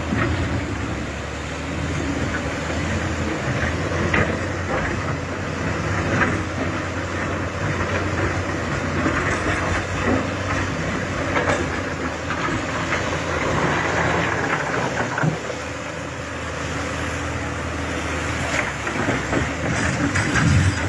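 Heavy machine's diesel engine running steadily, with irregular metallic clanks and knocks.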